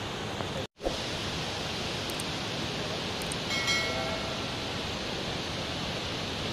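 A waterfall and river in flash flood: a muddy torrent rushes over the rocks in a steady, dense rush of water, swollen by a landslide upstream. The sound cuts out for an instant just under a second in, and a short pitched sound rises briefly above the water about halfway through.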